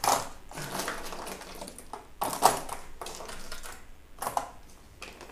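A handful of small electric motors being dropped back into a storage box, clinking and clattering against one another in several bursts, the loudest about two and a half seconds in.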